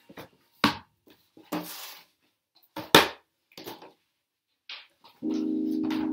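A few sharp knocks and a short rustle as paintings are handled and set down on the floor. About five seconds in, a held electronic keyboard chord starts and sustains.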